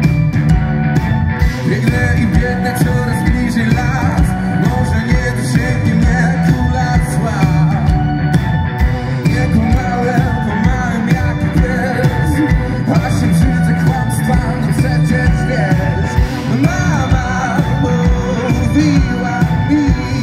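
Live rock band playing amplified through a PA: a drum kit keeping a steady beat under electric guitars and bass, with a wavering lead melody on top.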